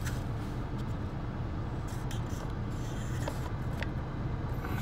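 Steady low background rumble with a few faint, brief clicks.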